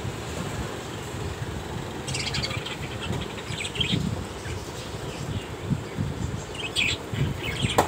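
Caged budgerigars chirping and chattering in short bursts, over a steady low rumble, with a sharp click near the end.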